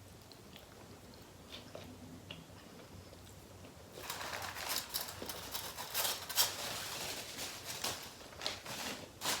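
Close-up chewing of tacos: faint scattered mouth clicks at first, then from about four seconds in a dense run of crackly, wet chewing noises.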